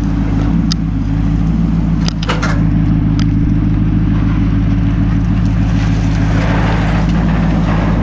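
Dodge Ram 1500 pickup's engine running steadily while the truck is driven slowly, with a few light clicks in the first few seconds.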